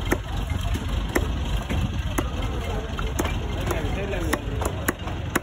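Heavy cleaver chopping fish into chunks on a wooden stump block, a sharp chop about once a second, over a low background rumble.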